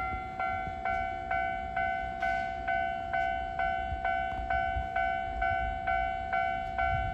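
A Japanese railway level-crossing warning bell ringing steadily, with ringing strikes at about two a second. It signals that the crossing is closed for an approaching train.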